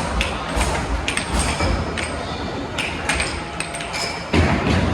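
Irregular sharp knocks and clinks with low thumps, over a steady background din.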